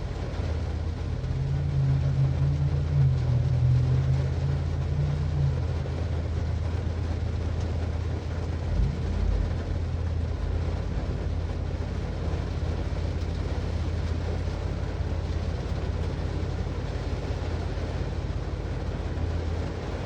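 Rain falling on a car, a steady wash of noise over a constant low rumble. A deeper hum joins in for a few seconds near the start, and there is a single low thump about nine seconds in.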